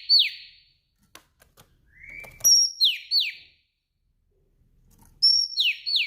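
Female oriental magpie-robin (kacer) calling: a repeated phrase of a soft short note, a high thin whistle and three quick downward-sweeping notes, coming round about every three seconds. A few faint clicks fall between the phrases.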